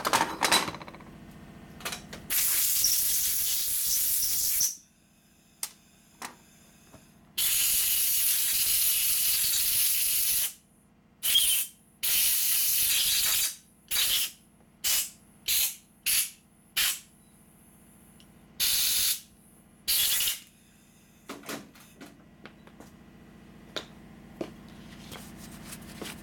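Compressed-air blow gun blowing rust residue out of nitrous oxide transfer pump parts: several long blasts of two to three seconds, a run of short quick bursts, then one more blast, with faint clicks of parts being handled in the pauses.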